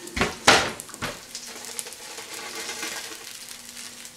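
Electric oven door pulled open, with two sharp clunks in the first half-second. Then a faint steady sizzle from the just-baked meatballs in their hot pan.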